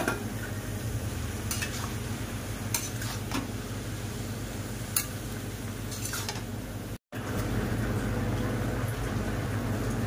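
Metal spatula stirring chopped bottle gourd stalks and leaves in a steel pan, with scattered scrapes and clinks against the pan and a faint sizzle, over a steady low hum. The sound cuts out for a moment about seven seconds in.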